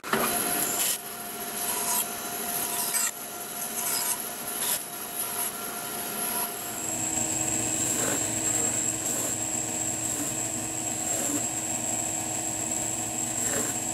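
Bandsaw running as its blade clips the protruding thin wood inserts off a walnut block, in several short cuts. About six and a half seconds in it gives way to a stationary belt sander running steadily with a high whine, the wood being sanded on the belt.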